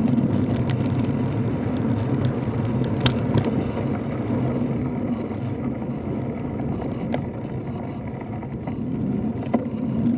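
Steady riding noise from a road bike: tyres rumbling on asphalt and wind on the camera's microphone, with a few sharp clicks.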